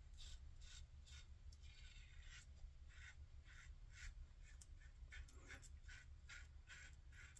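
Faint, quick scratchy strokes, about two to three a second, from wet shaving on the face.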